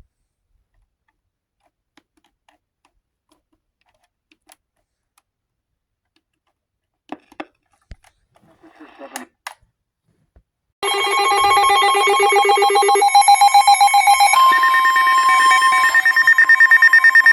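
Emergency alert attention tone: after near silence broken by a few faint clicks, a loud, steady electronic alarm tone starts abruptly about eleven seconds in and shifts pitch twice. It announces the severe thunderstorm warning that follows.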